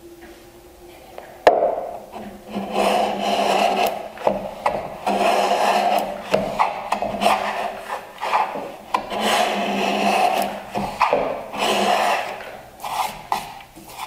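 An iron miter plane shaving end grain in a miter jack, trimming a board's end to a 45-degree bevel: a sharp knock about a second and a half in, then a run of about eight rasping strokes, each roughly a second long.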